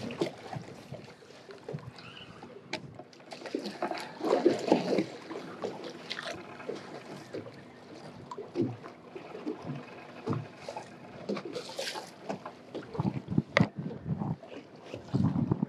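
Water slapping and sloshing against the hull of a small boat drifting at sea, with scattered knocks and clicks.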